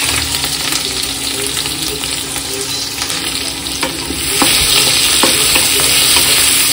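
Sliced onions and green chillies frying in hot oil in a kadhai, a steady sizzle that grows louder about four seconds in, while a spatula stirs them with light scrapes against the pan.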